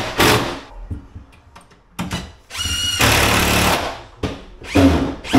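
Cordless power driver running in several short bursts as screws are driven into an MDF cabinet, with a steady motor whine; the longest burst, about a second, comes about three seconds in.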